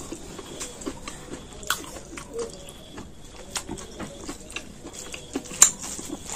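Mouth-eating sounds: a mouthful of rice and chicken curry chewed with soft wet clicks and smacks, while fingers work the food on a steel plate. The clicks are scattered and irregular, with one sharper click about five and a half seconds in.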